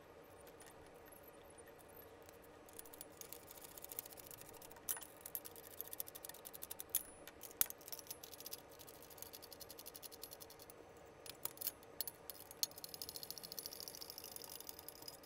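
Socket ratchet clicking in quick runs with some metallic taps, faint, as bolts are tightened on a steel crossbar. The runs start about three seconds in and come and go.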